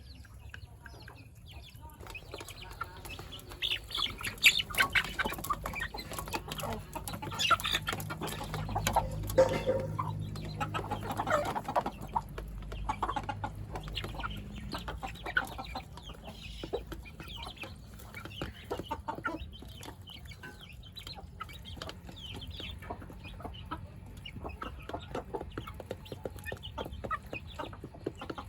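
Chickens clucking, with many short ticks and calls that are busiest in the first half, over a steady low hum.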